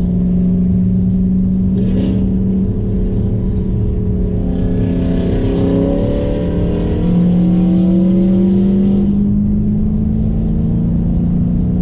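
Dodge Challenger Widebody's Hemi V8 running at speed on a banked oval, heard from inside the cabin: a steady low engine drone whose pitch climbs from about five to nine seconds in as the car accelerates.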